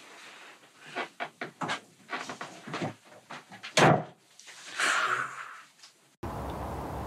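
Wooden knocks and rattles against a dresser, then one loud bang just before four seconds in, like a drawer or cupboard door slammed. Near the end the sound cuts abruptly to a steady even rumble.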